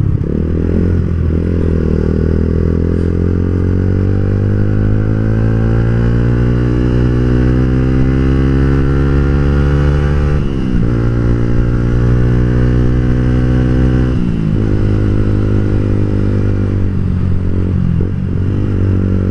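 Onboard sound of a Yamaha Vixion's single-cylinder four-stroke engine accelerating on the road. The engine note climbs steadily, drops with a gear change about ten seconds in and again about fourteen seconds in, then holds fairly steady.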